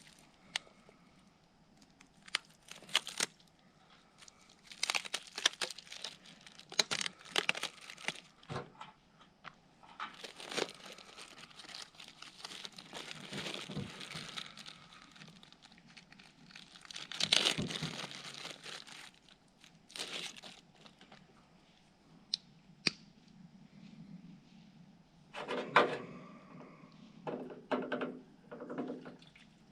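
Packaging being handled: crinkling and tearing in repeated bouts, with scattered clicks and knocks.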